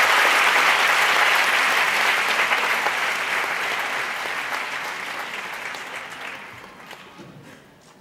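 Audience applauding, loud at first, then dying away over several seconds, with a few last scattered claps near the end.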